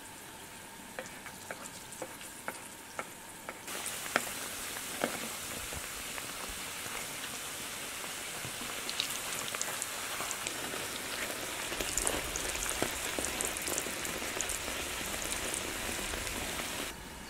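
Strips of dough on wooden skewers deep-frying in hot oil in a wide black wok, sizzling steadily. A few light clicks come in the first few seconds, and the sizzle grows louder and denser about four seconds in.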